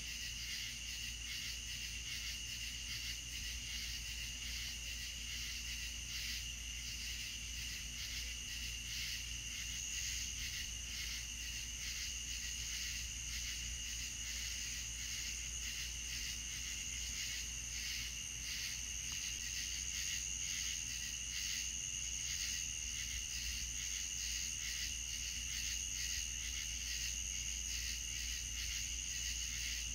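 A chorus of crickets chirping steadily at night: a continuous high, rapidly pulsing trill in two pitches, with a faint steady low hum underneath.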